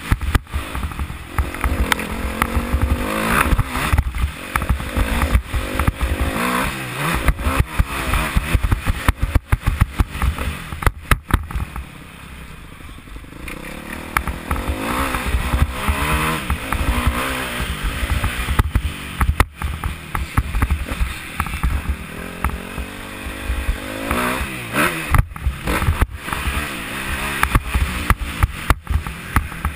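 Motocross bike engine revving up and falling back again and again as it is ridden hard around a dirt track, with wind buffeting and knocking on a helmet-mounted microphone. The engine eases off briefly around twelve seconds in, then picks up again.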